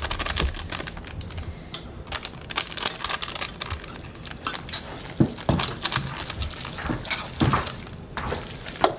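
A utensil clicking and scraping against a metal pot as cooked noodles are stirred, in quick, irregular clicks.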